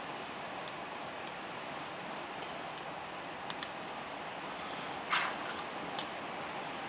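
Small metal hand tools clicking and tapping against the parts of an opened iPhone 4 while working at a stripped screw: a scatter of light clicks, a louder short scraping click just after five seconds and another sharp click about a second later, over a steady hiss.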